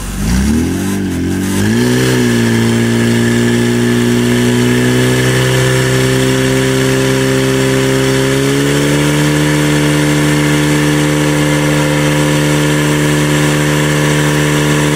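Portable fire-sport pump engine revved up from low revs, its pitch wavering as it climbs over the first two seconds, then held at high revs and pushed a step higher about eight and a half seconds in. The engine is driving the pump that pressurises the attack hoses feeding the water jets.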